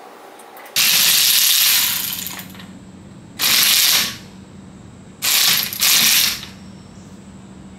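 Socket ratchet wrench clicking in four fast bursts, the first about a second and a half long and the others shorter, the last two close together.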